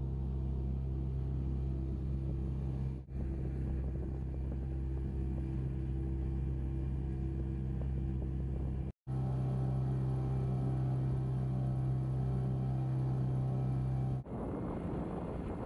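Boat motor running at a steady drone, with a low even hum. It is broken by short cuts about three and nine seconds in, and gives way to a rougher, noisier rumble near the end.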